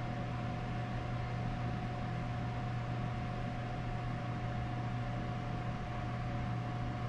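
Steady low electric hum with a constant high-pitched whine above it: an electric motor running.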